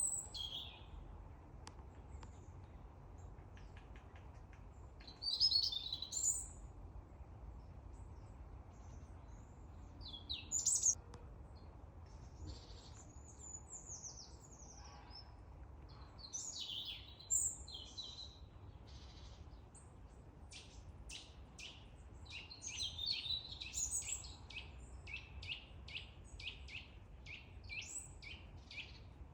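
Small songbirds chirping and calling in a forest, in scattered high bursts, with a fast run of short high notes, about three a second, over the last third. A low steady rumble lies underneath.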